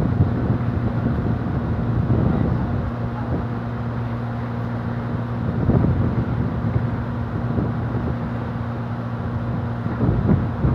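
A ferry's diesel engines running with a steady low hum, under a rushing haze of wind and water.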